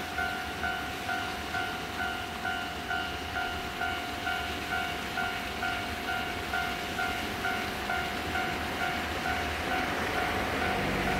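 Japanese railway level-crossing warning bell ringing steadily, about two dings a second. Near the end the rumble of an approaching Yoro Railway electric train builds under it.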